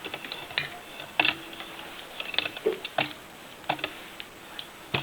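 Irregular clicks and light knocks of hand work with tools and parts, several of them followed by a brief metallic ring.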